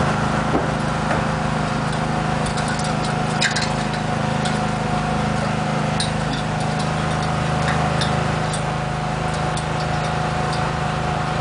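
An engine running steadily at an even idle, with a scattering of light clicks and taps on top, the dog's claws and feet on the aluminium ladder's rungs.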